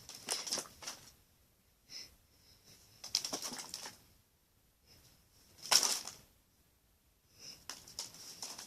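Pokémon trading cards being thrown and scattered, flapping and rustling in several separate short bursts, the loudest about six seconds in.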